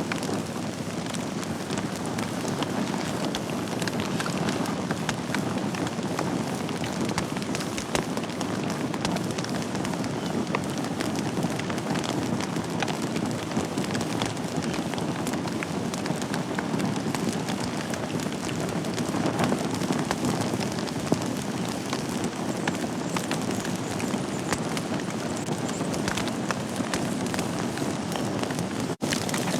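Wood fire burning in a fireplace: a steady low rush of flames with frequent small crackles and pops. The sound cuts out for an instant near the end.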